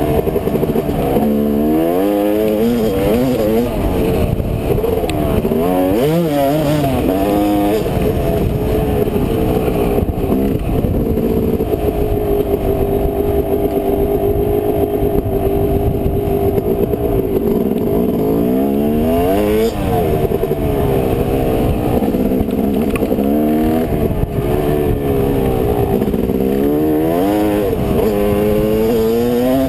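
Dirt bike engine under way on a trail, its pitch climbing and dropping again and again as the rider opens and shuts the throttle, with a steady cruise for several seconds near the middle, over wind and trail noise.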